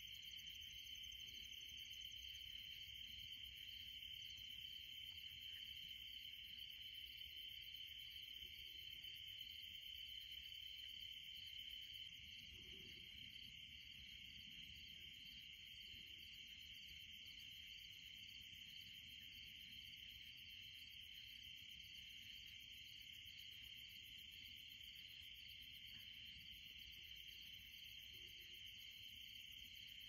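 Faint night chorus of crickets: a steady, unbroken high trilling, with a second insect's regularly pulsed chirping above it. A few faint low frog calls come now and then.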